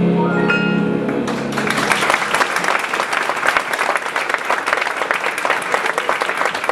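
The last held notes of the song's accompaniment fade out, and an audience breaks into applause about a second in, clapping steadily from then on.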